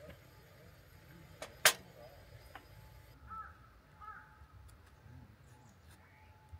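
A sharp click about a second and a half in, with a fainter one just before it. Then two short calls from a bird, about a second apart, over a quiet outdoor background.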